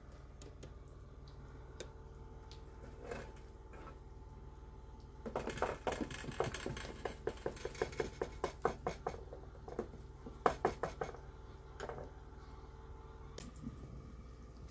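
Hands patting and pressing a piece of bread dough flat on a metal tray: a quick run of soft slaps, about three to four a second, starting about five seconds in and lasting some six seconds.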